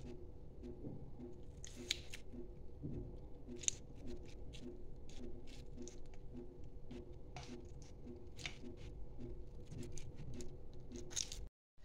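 Lemon halves squeezed by hand over raw marinating chicken: faint wet squishing with irregular small clicks and crackles. Under it runs a low hum pulsing about twice a second. The sound cuts off suddenly near the end.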